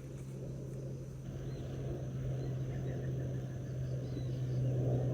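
Steady low motor hum with a rumble beneath it, growing a little louder toward the end, with faint bird chirps over it.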